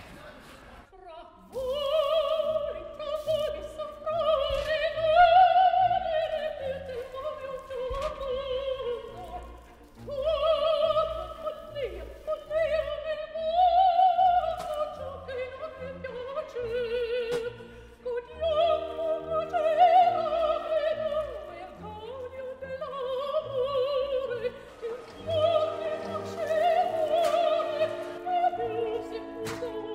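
Background music: operatic singing, one voice with a wide vibrato holding long phrases over orchestral accompaniment.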